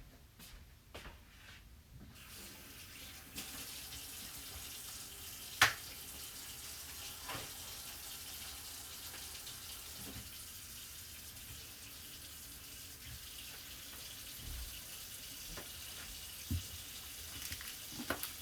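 Kitchen tap running steadily into the sink, turned on about two seconds in, with a sharp knock a few seconds later and a few lighter clunks.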